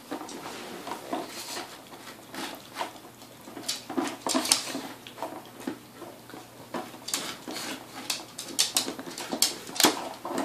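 A dog eating wet food from a plastic Aikiou slow-feeder bowl: irregular licking and chewing mixed with sharp clicks and knocks of the plastic. The clicks come thickest in the middle and again in the last few seconds.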